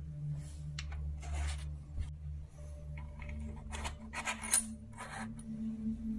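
Small metal bicycle parts and tools clinking and rattling as they are handled, a few short bursts with one sharp, ringing clink about four and a half seconds in.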